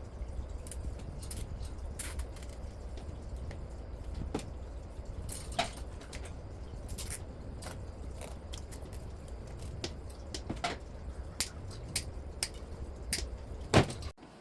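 Scattered light clicks, clinks and knocks, as of tools or metal parts being handled, over a steady low hum. The loudest knock comes near the end, and the sound then cuts off suddenly.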